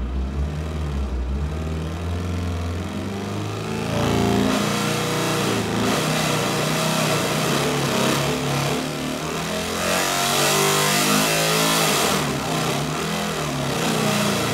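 Synthesized engine sound from a procedural model with a non-linear waveguide exhaust, played through a loudspeaker. It runs at very low revs for the first few seconds, then is revved up about four seconds in, growing louder and harsher, with the noisiest, fullest stretch near the end.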